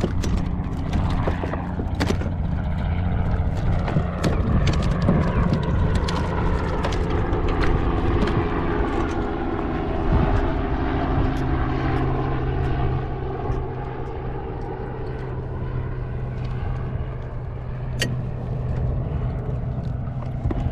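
A motor engine drones steadily, its pitch drifting slowly lower around the middle, with scattered sharp clicks and knocks over it.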